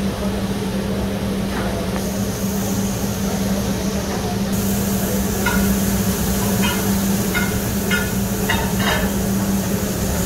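Metal spatulas scraping and clinking on a steel flat-top griddle, a run of short strokes starting about halfway in, over a steady low hum.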